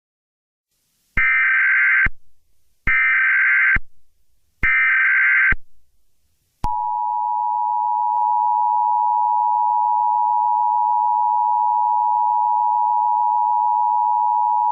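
Emergency Alert System signal: three short bursts of SAME header data tones, each about a second long, then the steady two-tone EAS attention signal, which starts a few seconds in and holds.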